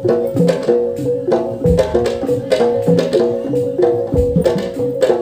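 Traditional percussion music accompanying a pencak silat performance: hand drums over a repeating pattern of pitched notes, with a deep low stroke about every two and a half seconds.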